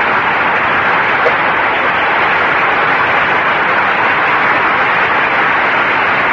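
Studio audience applauding: a steady, dense clatter of many hands.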